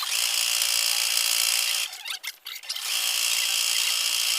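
Electric sewing machine stitching down a seam, its motor running steadily. It stops briefly about two seconds in, with a few light clicks, then runs again.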